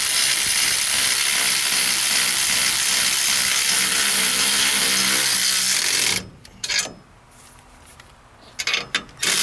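Milwaukee cordless 3/8-inch ratchet running steadily as it spins a nut down a bracket bolt, then stopping suddenly about six seconds in. A few light clicks and knocks follow.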